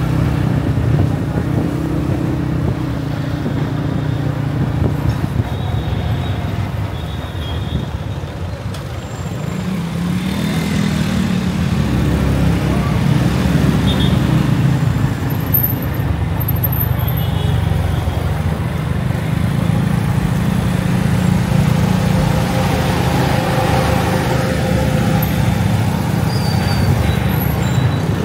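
Road traffic: engines of passing motor vehicles running as a steady low drone that eases briefly about a third of the way through, then builds again.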